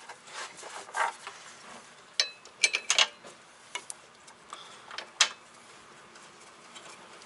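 Scattered sharp metal clicks and clinks as a mounting bolt is threaded by hand into the rear beam bracket of a VW Mk2, with a cluster around three seconds in and a single sharp click about five seconds in.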